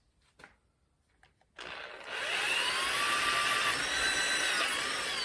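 A few faint clicks, then about a second and a half in a small electric power tool starts and runs, with a whine that bends up and down in pitch as it is worked.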